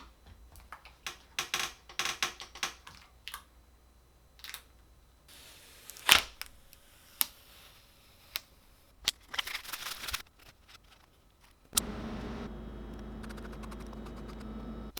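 Small sharp clicks, snaps and short scrapes of hands handling hard parts and tools, irregular and spaced out. About three-quarters of the way through, a steady hum starts and then cuts off suddenly.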